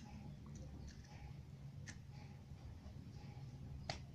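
Faint handling sounds of a smartphone and its SIM tray: a few small plastic clicks, with a faint one about two seconds in and a sharper one near the end.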